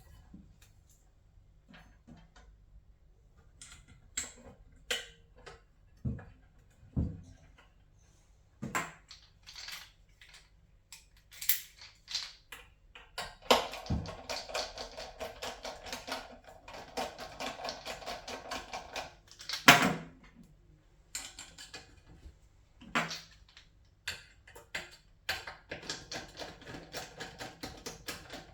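Scattered clicks and knocks of hand tools and metal parts being handled, then stretches of rapid, dense clicking, the first beginning about halfway through and the second near the end, with a loud sharp knock between them.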